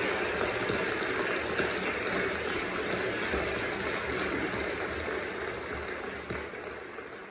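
A steady rushing noise from a television's speakers, fading away near the end.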